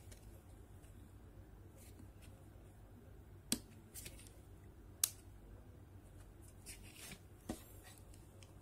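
Plastic pry pick working around the casing of an Asus Zenfone Go X014D phone: three sharp plastic clicks spaced a second or two apart, with fainter ticks and scratching between, as the case is prised apart.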